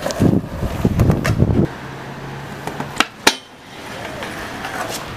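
Skateboard wheels rolling on concrete with a low rumble, broken by a few sharp clacks of the board; the loudest clack comes a little past three seconds in, and the rolling is quieter after it.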